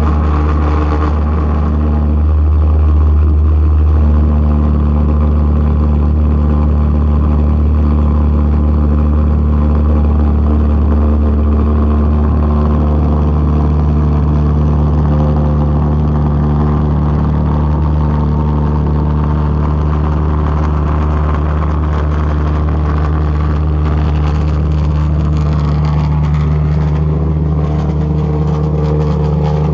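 Propane-fuelled pulsejet engine on a go-kart running continuously with a loud, steady low-pitched drone, its pitch shifting slightly a couple of times.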